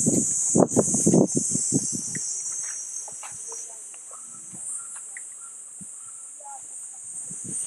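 Steady high-pitched insect drone, with a person's voice talking over the first two seconds.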